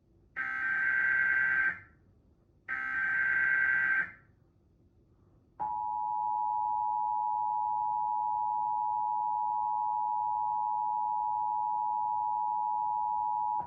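Emergency Alert System data header: the last two of its three bursts, each a harsh, buzzy electronic screech about a second and a half long. After a short pause comes the EAS attention signal, a steady dual-tone alarm that holds about eight seconds and then stops. Together they open a broadcast Required Monthly Test alert.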